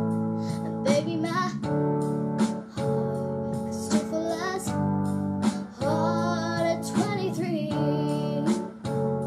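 A young girl singing a slow pop ballad over a recorded backing track of sustained chords, holding and bending notes in several sung phrases.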